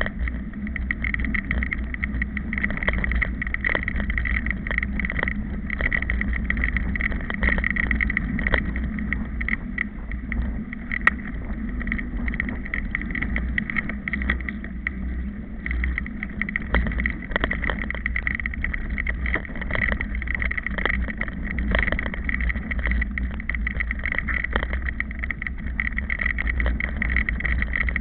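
Ride noise of a mountain bike on a rough dirt track, heard from a camera mounted on the bike: steady wind rumble on the microphone with frequent knocks and rattles from the bumps.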